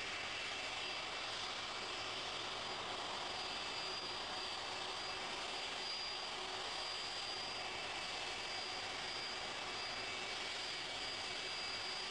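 Boeing 747's jet engines running steadily as the airliner taxis: an even rushing noise with a faint high whine.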